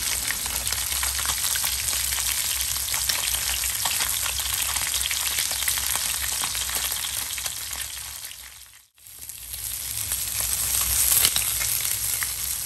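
Whole galunggong (round scad) pan-frying in hot oil until crisp, a dense sizzle with fine spitting crackles. About two-thirds of the way through, the sizzle fades to silence for a moment, then resumes.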